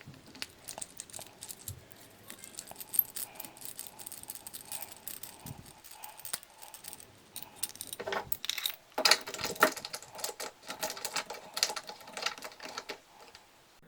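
Metal clicks, clinks and rattles of a circular saw's steel riving knife being slid into and out of its slotted mount. The handling is busiest in the second half.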